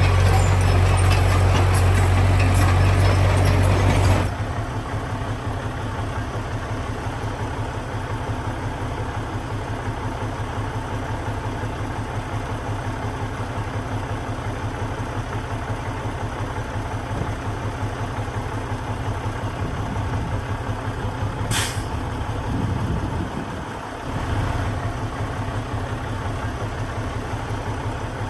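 Heavy diesel engine of earthmoving machinery running, loud for about the first four seconds, then dropping suddenly to a quieter steady running. A short hiss comes about two-thirds of the way through.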